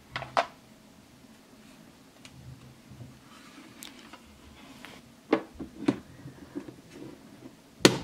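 Hard plastic toy kitchen pieces clicking and knocking as a toy croissant is set on the toy oven's rack and the oven door is shut: a few sharp clacks, the loudest near the end.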